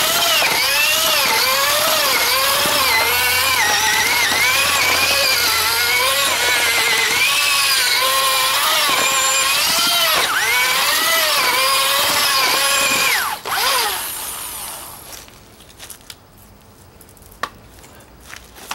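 Electric drill turning a homemade paddle mixer through mortar mix in a bucket, its motor whine wavering up and down in pitch as the load on the paddle changes. About 13 seconds in it stops and winds down, leaving only a few faint knocks.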